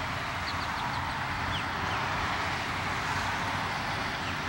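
Steady outdoor background hiss with a low hum, like distant traffic. Over it, faint short high chirps from a European starling: a quick run about half a second in, a falling one soon after, and another near the end.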